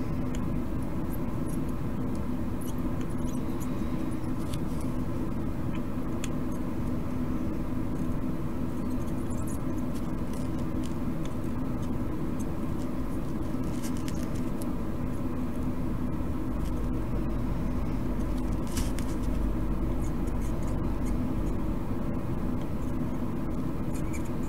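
Steady drone of a solder fume extractor's fan running, with a few faint small clicks now and then.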